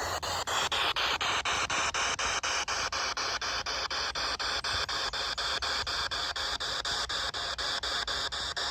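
PSB7 spirit box sweeping through radio frequencies: a steady hiss of radio static chopped by short gaps about five times a second as it jumps from station to station.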